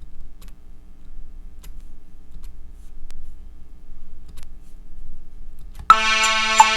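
Faint scattered clicks over a low hum, then about six seconds in a software synthesizer, played from a USB MIDI keyboard, comes in loudly with a held chord and a beat.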